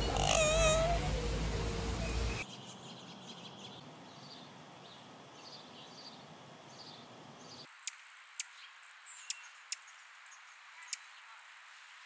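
A loud, wavering call from a red lory, a meow-like trill over steady background noise, cut off abruptly about two seconds in. After that only faint high chirps and a few sharp, scattered ticks remain.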